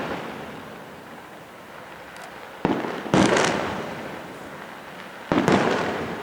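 Fireworks bursting overhead: two pairs of sharp bangs, one pair about two and a half seconds in and one about five seconds in, each bang trailing off in a long fading rumble, with a brief crackle after the first pair.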